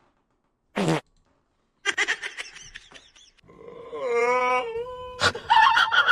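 Laughter, a short call falling in pitch, and a long wailing call that wavers and then holds one note, with a sharp click near the end followed by more laughter.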